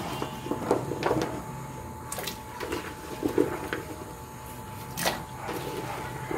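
Chopped mango pieces being handled in a plastic bowl and dropped into an aluminium pot of water, a series of irregular soft knocks and clicks over a faint steady low hum.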